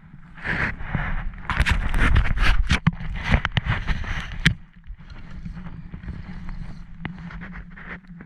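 Scraping, rustling and several sharp knocks from handling fishing gear on a small boat as a fish is brought in, busiest in the first half, followed by a quieter steady rumble.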